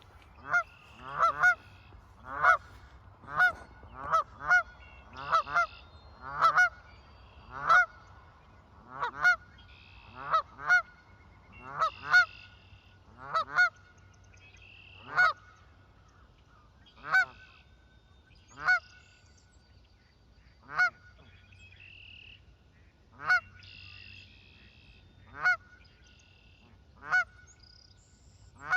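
Canada goose honking over and over, loud short honks about two a second at first, then spacing out to one every couple of seconds: alarm honking at a person close to its nesting ground.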